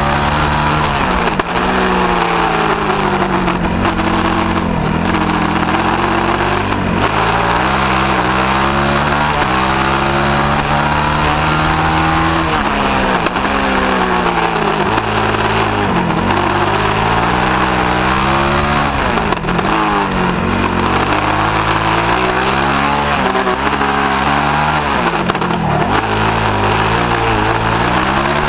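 Single-seat open-wheel race car's engine heard from onboard on a hot lap. It revs up hard and drops back about a dozen times as the driver accelerates, shifts and slows for corners.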